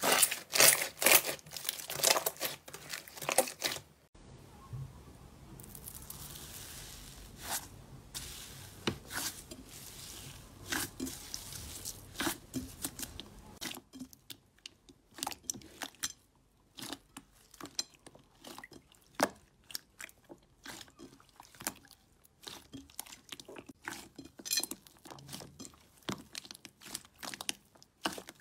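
Slime being squeezed and poked by hand, giving sharp crunchy clicks and crackles. The sound changes twice, about 4 and 14 seconds in: first dense crackling, then sparser clicks over a faint steady hiss, then quick runs of clicks.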